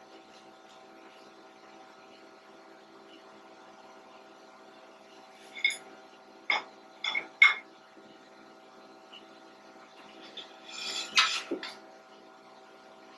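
Steady electrical hum with four sharp metallic clinks about halfway through, followed near the end by a short scraping rattle of metal parts being handled.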